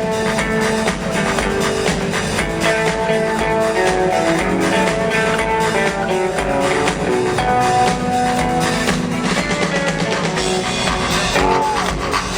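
Live rock band playing in an arena: a melodic guitar line over drums and bass, with no singing.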